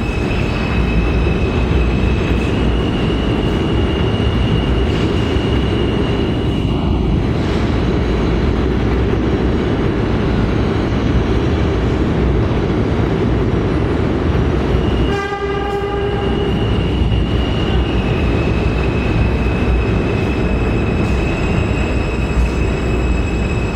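New York City subway train noise: a steady rumble with a high, even whine over it. A short horn blast sounds a little past the middle, lasting about a second.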